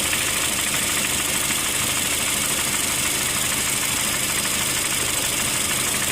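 2008 Honda Fit's L15A1 1.5-litre four-cylinder engine running at a steady speed, with the knock that the owner hears from the engine.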